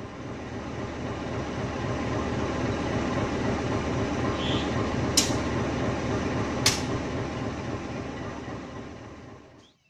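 Steady low running of a CC 201 diesel-electric locomotive and the turntable turning it, with two sharp metallic clanks about a second and a half apart midway. The sound swells and then fades out at the end.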